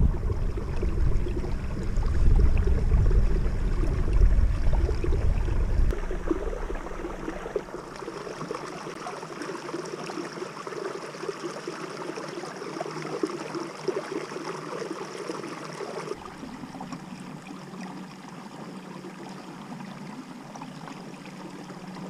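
Water rushing and gurgling along the hull of a kayak moving up the river under motor power, with a faint steady hum underneath. Wind rumbles on the microphone for the first six seconds, and the water sound fades about sixteen seconds in.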